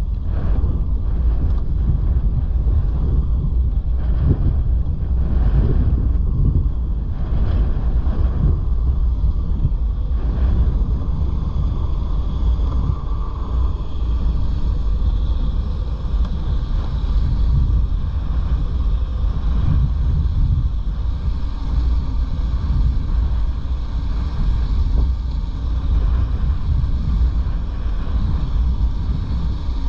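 Strong wind buffeting the microphone: a loud, continuous low rumble that rises and falls, with a few brief rushing gusts in the first ten seconds or so.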